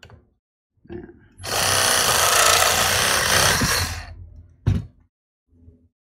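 Cordless reciprocating saw cutting through PVC pipe: a couple of short faint noises as the blade is set on the pipe, then the saw runs loudly for about two and a half seconds and dies away as the cut ends, with a sharp click just after.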